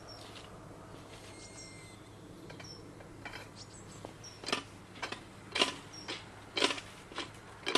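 Tirfor hand winch being worked: from about halfway through, its lever strokes give sharp metallic clicks, about two a second, as it hauls the cable under load.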